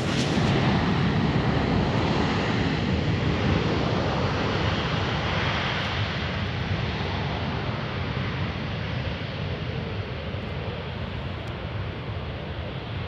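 Twin rear-mounted turbofan engines of a Gulfstream business jet, running at high power with a steady jet roar as the aircraft rolls away down the runway. The roar is loudest in the first few seconds and fades slowly as the jet moves off.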